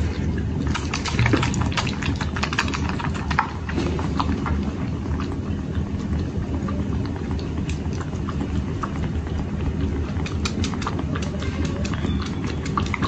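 Two kittens suckling milk from the silicone teats of a pacifier feeding bowl: quick, irregular wet sucking clicks and smacks over a steady low rumble.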